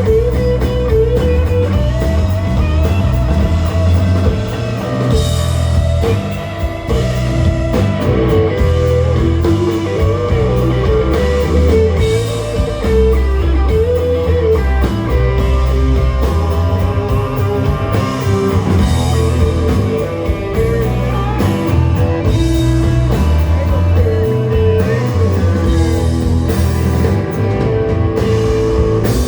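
Rock music led by a guitar melody that bends up and down in pitch over a steady bass line and cymbals.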